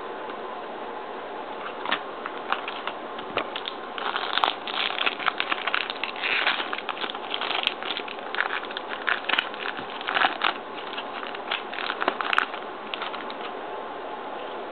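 Trading cards and packs being handled: a run of quick rustling, sliding and crinkling sounds from about two seconds in until near the end, over a steady hiss.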